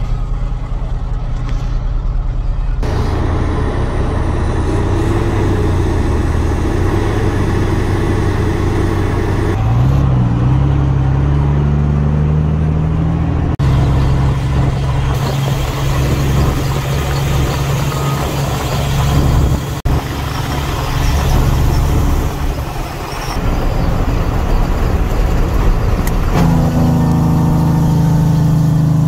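Dump truck's diesel engine running under load, heard from inside the cab. Its note rises about ten seconds in as it revs through a gear, and the sound changes abruptly several times between short clips.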